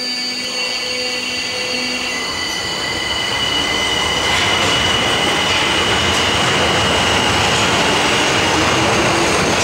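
Tokyo Metro 1000 series subway train with Toshiba PMSM traction drive pulling out of the station: a low hum at first, then the running noise of motors and wheels growing louder from about three seconds in as it picks up speed, with steady high-pitched tones over it.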